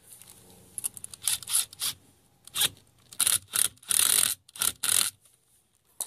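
Worm-drive hose clamp being tightened with a cordless drill/driver around a spa air blower's rubber coupling, in a run of short bursts with the longest about four seconds in.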